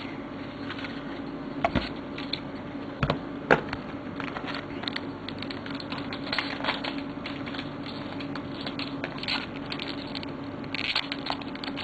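Foil Yu-Gi-Oh booster pack being worked open by hand and its cards handled: scattered small clicks and crinkles, with a longer rustle near the end as the wrapper gives.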